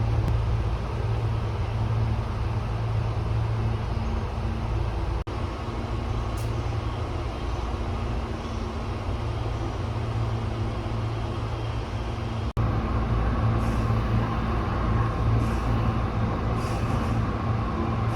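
Steady low electric hum of a Tobu 8000 series train, with two abrupt breaks where the sound cuts out for an instant.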